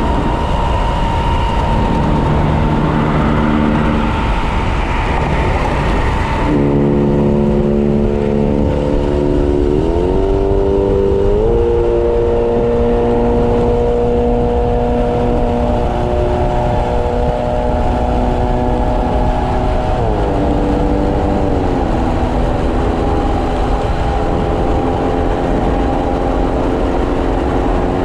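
Electric-converted Kawasaki KLX motorcycle cruising at about 90 km/h: a steady rush of wind and road noise, with a whine of several pitches that glides up about ten seconds in and back down about twenty seconds in.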